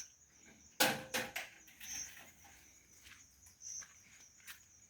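A sharp thump about a second in, quickly followed by a second knock, then a few faint clicks, over a faint high chirp that recurs every couple of seconds.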